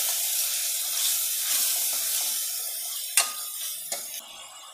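Onion-tomato masala sizzling in a kadhai as a steel ladle stirs it, the sizzle slowly fading. The ladle knocks sharply against the pan about three seconds in and again just before four, and the sizzle drops away soon after.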